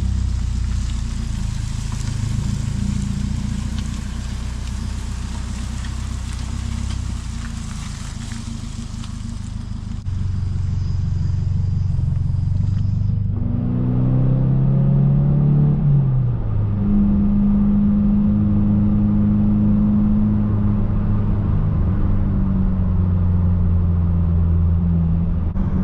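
A 2023 Subaru WRX's engine running while driving, at first steady with a hiss of road and wind noise. About halfway through the sound changes abruptly, and the engine note climbs and then falls before settling into a steady drone.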